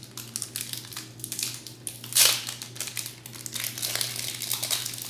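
Foil wrapper of a Pokémon booster pack crinkling in the hands as it is torn open, with one loud rip about two seconds in.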